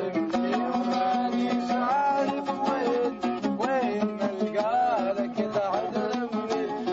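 A ten-string oud plucked in a Middle Eastern folk melody, a continuous run of ornamented notes over a steady low drone.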